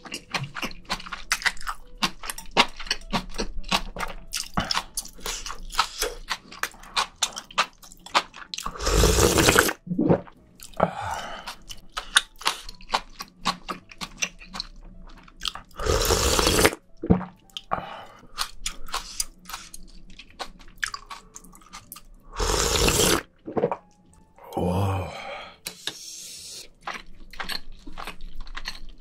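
Close-miked eating of spicy seafood stew: steady wet chewing and mouth clicks, broken by three loud slurps of broth about a third of the way in, midway and about three quarters through.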